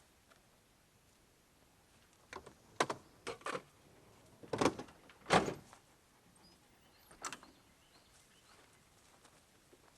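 A series of short knocks and clunks, about seven in all over a few seconds, the loudest two in the middle.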